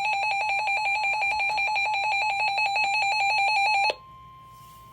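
Electronic alert alarm of a weather-alert radio receiver: a loud high tone beeping in rapid pulses, triggered by a severe thunderstorm warning coming in. It cuts off suddenly about four seconds in, leaving a faint steady tone.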